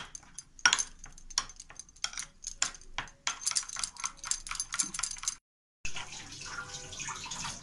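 Steel spoon stirring curd and ground spices in a glass bowl, clinking and scraping against the glass in quick repeated strokes. After a brief cut near the end, a steady hiss takes over.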